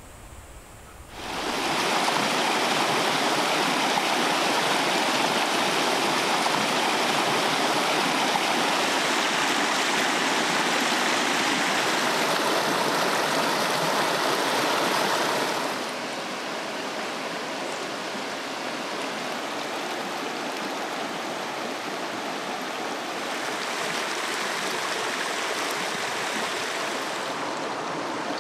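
Mountain stream rushing and splashing over rocks: a steady rush of water that cuts in about a second in and becomes a little quieter about halfway through.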